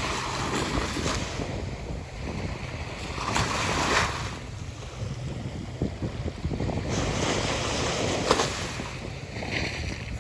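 Ocean waves washing onto a beach, with two louder surges of breaking surf, one about a third of the way in and one near the end. Wind buffets the microphone throughout, adding a low rumble.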